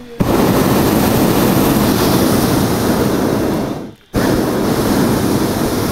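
Hot air balloon's propane burner firing, starting abruptly, breaking off for a moment about four seconds in, then firing again.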